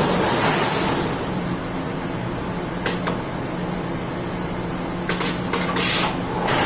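Steady machinery hum with a constant high hiss, as in a sheet-metal shop running a CNC turret punch press; a sharp clack about three seconds in and several short metallic clatters near the end.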